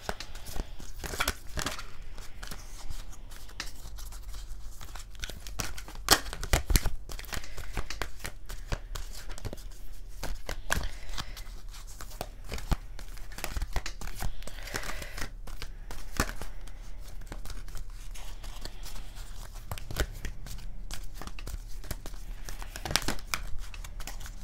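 A deck of oracle cards being shuffled by hand: a continuous, irregular run of crisp card-on-card flicks and clicks, a few louder ones about six seconds in.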